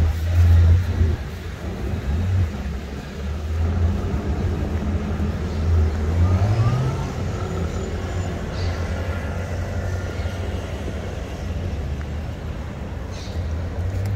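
City street traffic: motor vehicle engines running with a steady low hum. One engine gets louder and rises in pitch as it accelerates about six seconds in.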